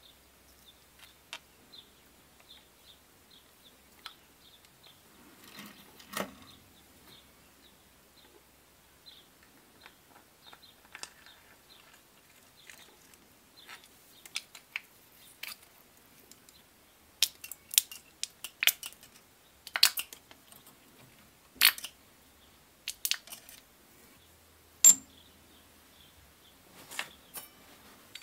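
Small steel parts of a Fichtel & Sachs Torpedo mod29 three-speed hub clicking and clinking as they are handled and fitted onto the axle by hand. The clicks are scattered at first, then come thick and loud for several seconds past the middle.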